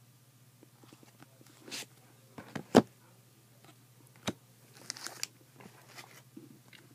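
Trading cards and foil card packs being handled on a tabletop: a few sharp taps and knocks as cards are set down, the loudest about three seconds in, with brief crinkly rustles of the foil wrappers.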